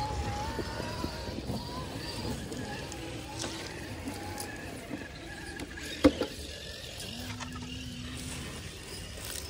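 Small electric motors of radio-controlled crawler trucks whining as they crawl over rocks, the pitch wavering with the throttle, with a sharp knock about six seconds in and a brief steady hum a second later.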